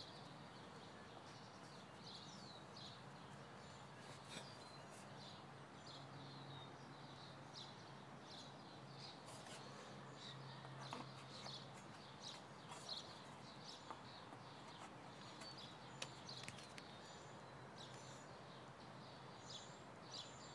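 Faint birds chirping, many short quick calls throughout, over a low steady hum.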